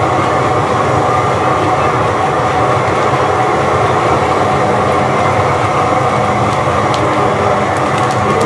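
A batch of kettle corn cooking in a large kettle as it is stirred with a long paddle: a loud, steady, dense noise of popping and sizzling corn, with a few sharp clicks near the end.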